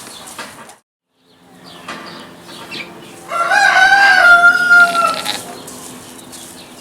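A loud farm animal call lasting about two seconds, held on one pitch and dipping slightly at the end, about three seconds in.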